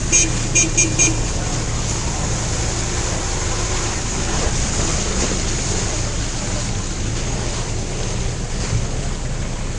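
Four quick high beeps in the first second, then a vehicle engine running steadily under heavy wind noise on the microphone.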